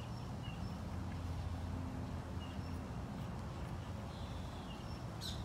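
Faint short bird chirps over a steady low rumble.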